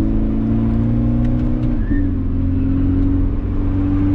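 Car engine heard from inside the cabin, pulling under load at steady revs; about two seconds in the pitch dips briefly, then the revs climb again.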